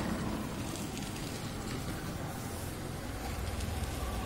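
Street traffic noise with a motorcycle engine running, its low rumble growing stronger near the end.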